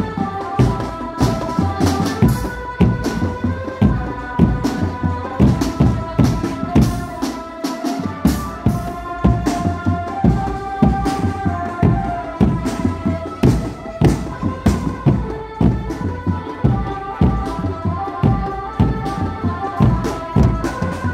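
Live drum band playing: a steady beat of drum strikes under a melody of held notes that step from one pitch to the next.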